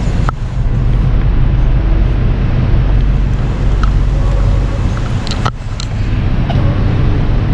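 Loud, steady low rumble of vehicle traffic and background noise, heard while walking. There is a sharp click with a brief dip shortly after the start and again about five and a half seconds in.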